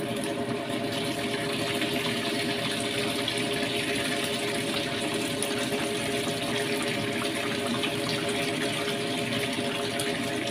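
Noodle broth boiling in a wide stainless-steel wok on a gas stove: steady bubbling and hiss, with a low steady hum underneath.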